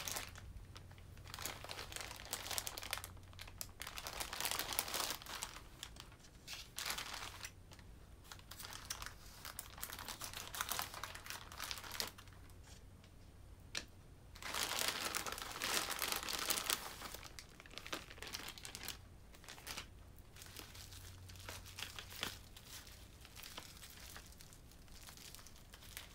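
Plastic courier mailer bag and bubble-wrap packaging crinkling and rustling as they are handled and opened, in bursts with short pauses.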